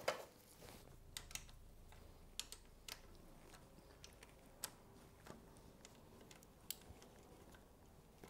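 Faint, irregular clicks of a hand ratchet and socket snugging the oil filter cover bolts, a few clicks at a time between pauses.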